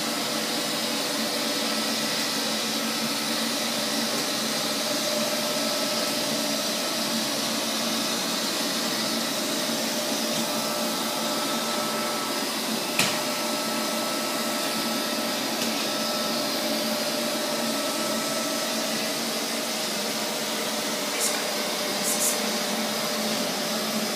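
Neato XV-21 robot vacuum cleaner running steadily, an even motor noise with a steady whine. There is one sharp knock about halfway through and a few light clicks near the end.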